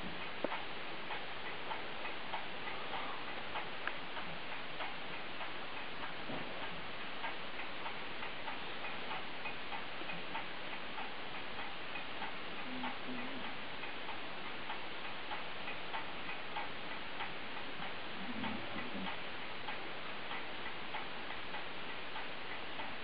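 Soft snoring, a few low snores spaced several seconds apart in the second half, over a steady hiss with light regular ticking.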